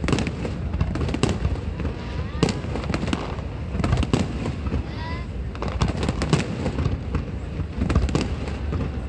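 Fireworks display: a dense run of booming bursts and crackling reports, several per second, with a couple of short rising whistling tones about two and five seconds in.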